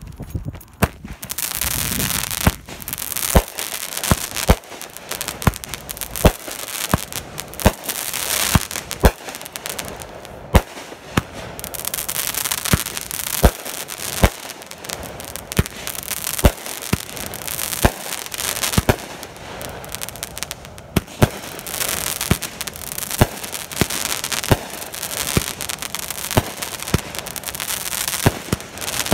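Brothers 'Blonde Joke' 500-gram consumer firework cake firing shot after shot. Sharp reports come about once a second over a steady hiss that swells and fades.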